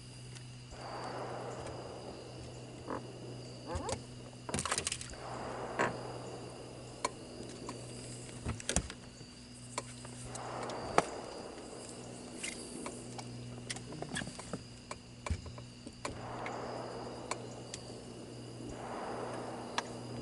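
Frogs and insects calling at dusk: a steady high insect trill under a steady low frog chorus, with swells of calling every few seconds. Scattered sharp clicks and knocks sound over it, the loudest about eleven seconds in.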